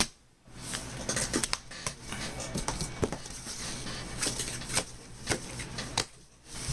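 Cardboard box being opened and unpacked by hand: flaps and packing pieces rustling and scraping, with many short clicks and knocks.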